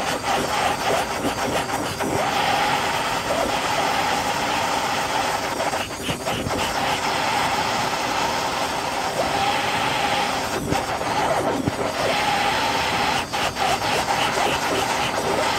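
Handheld gas blowtorch burning with a steady hiss, its flame played into the cardboard fuel of a bee smoker to light it. The smoker's bellows are puffed a few times at the same time.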